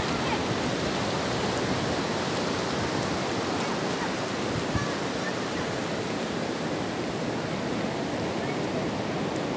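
Ocean surf washing up a sand beach: a steady, even rushing hiss.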